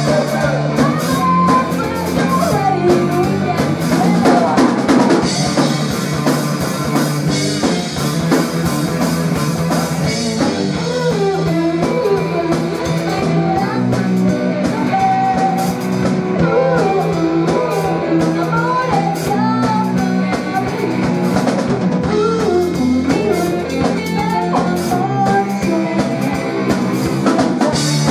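A rock band playing live: a woman singing over electric guitar, electric bass and a drum kit, with a steady driving beat.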